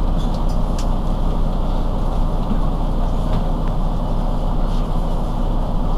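Mercedes-Benz Citaro C2 city bus's rear-mounted engine idling at a stop, a steady low rumble with a few faint clicks over it.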